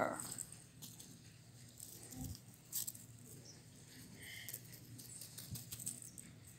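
Faint soft scuffs and taps of small plastic toy cows being picked up and set down on dry, crumbly soil, with a few slightly louder taps a little after two seconds in.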